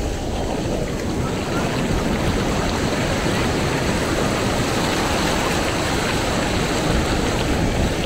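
Ocean surf washing onto the beach: a steady rushing noise that swells a little about two seconds in.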